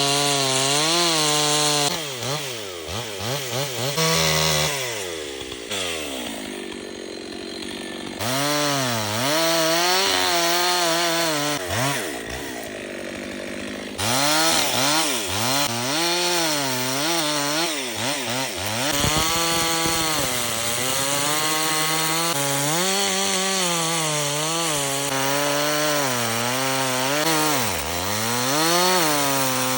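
Two-stroke chainsaw cutting wood. The engine pitch keeps dipping and rising as the chain bogs into the cut and frees up, with a couple of quieter, slower stretches between cuts.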